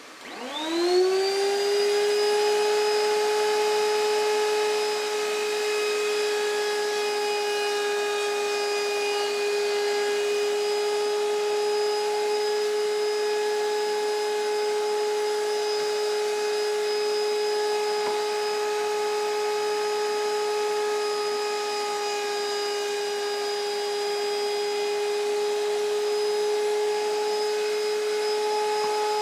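Wood router's electric motor switched on, winding up to speed with a rising whine over about a second, then running steadily at full speed with a high, even whine.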